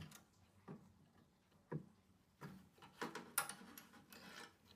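Wire connectors being pulled off the terminals of a microwave oven's high-voltage capacitor: a series of about six faint clicks and scrapes.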